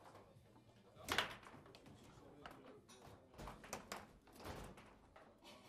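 Foosball game in play: the ball is struck by the rod figures and knocks against the table, one sharp loud crack about a second in followed by a scatter of lighter knocks and clacks.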